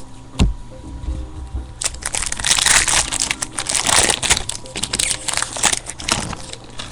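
Foil wrapper of a pack of baseball cards crinkling and crackling as it is handled and torn open, for about five seconds, after a single soft knock near the start.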